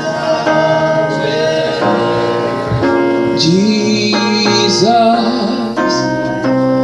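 Live worship song: voices sing slow, held notes over instrumental accompaniment, with the word "Jesus" sung near the end.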